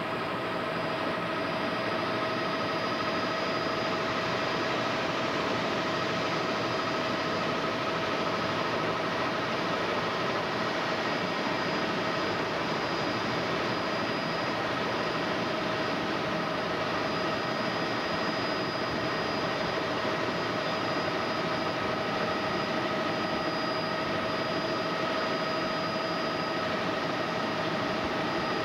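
Tour helicopter in flight, heard from inside the cabin: a steady, dense engine-and-rotor noise with a few steady tones running through it.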